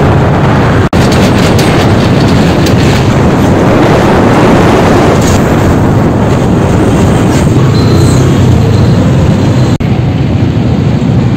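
Loud, steady noise of riding a motorcycle through traffic: wind rushing over the microphone with engine and road noise beneath. It drops out for an instant about a second in and again near the end.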